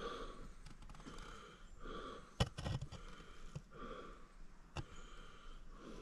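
A person breathing close to the microphone, soft breath sounds about once a second, with a few sharp clicks in the middle.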